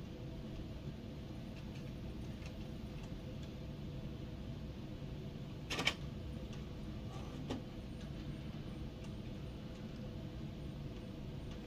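Printer running a print job: a steady low mechanical hum with a sharp click about six seconds in and a lighter click a little later.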